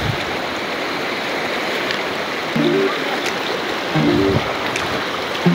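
Shallow, fast river rushing over stones, a steady wash of water. From about halfway in, a short figure of low musical notes repeats about every second and a half over the water.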